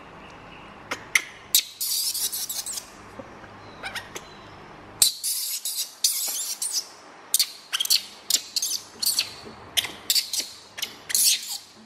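Baby macaque shrieking in high-pitched, wavering cries: one burst about a second and a half in, a longer one midway, then a quick run of short shrieks near the end. The cries are distress calls from the struggling monkey as it is held down.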